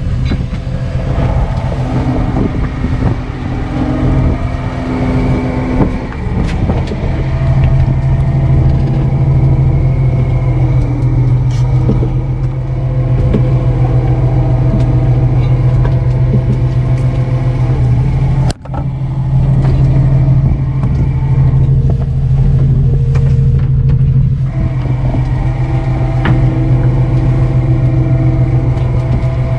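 Fishing boat's engine running steadily, a loud, even low drone heard on deck, with a few faint knocks of gear over it. The sound cuts out for an instant about two-thirds of the way through.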